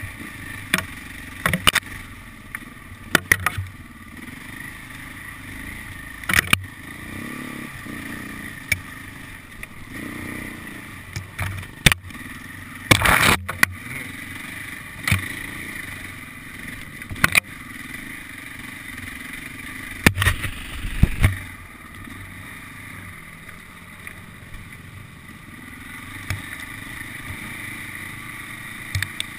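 KTM enduro motorcycle engine running steadily on a rough woodland trail, with sharp knocks and clatters now and then as the bike jolts over the ground, a cluster of them about halfway through.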